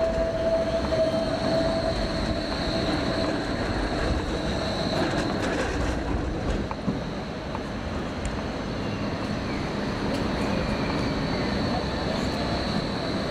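Bombardier Flexity Berlin low-floor tram rolling through a curve, its wheels squealing with a steady high tone over the running rumble. The squeal fades about halfway through as the tram moves off.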